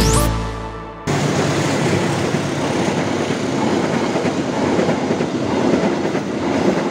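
A passenger train's coaches rolling past on the track: a steady rush of wheel-on-rail noise that starts abruptly about a second in, after the tail of fading electronic music.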